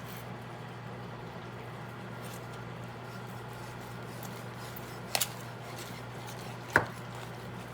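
Steady low electrical hum, with a short double click about five seconds in and a sharper single click just before seven seconds.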